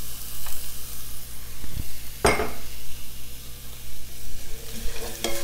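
Diced onion sizzling in hot olive oil in an electric frying pan, a steady hiss, with one sharp knock about two seconds in.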